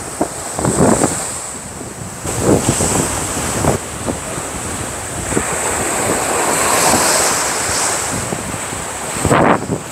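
Sea surf breaking and washing up a sandy shore, swelling and easing, with wind buffeting the microphone.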